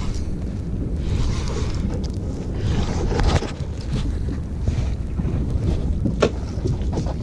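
Wind buffeting the microphone aboard a small fishing boat at sea, a steady low rumble, with a couple of sharp clicks near the end.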